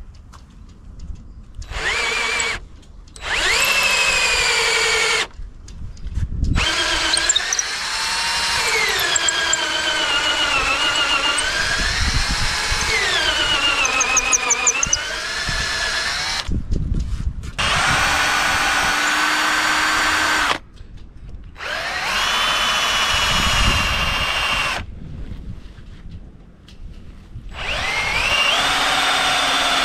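Electric drill boring bolt holes through the wooden stem and apron of a dinghy backbone. It runs in several spells with short pauses between them, and its motor whine rises and falls in pitch as the speed and load change.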